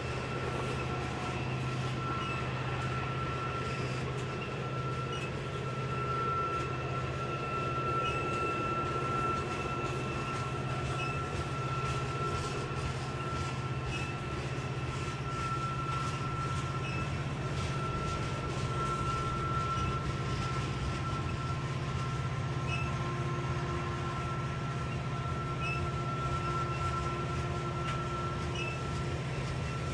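Loaded coal hopper cars of a heavy freight train rolling slowly past: a steady rumble of wheels on rail with scattered small clicks, and a thin, steady high-pitched squeal over it.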